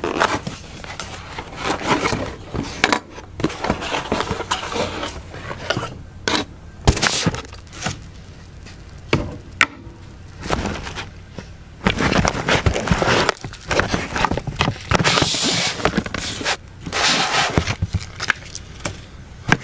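A product box being opened and its packaging handled by hand: irregular scraping, rustling and crackling, with scattered sharp knocks and clicks.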